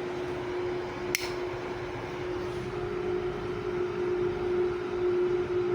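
Homemade UPS running on mains with a steady, even hum, one clear pitch throughout, and a single sharp click about a second in.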